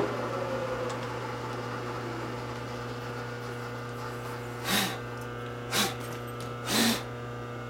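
Steady electrical hum of shop machinery at the milling machine. Near the end come three short hissing bursts, about a second apart.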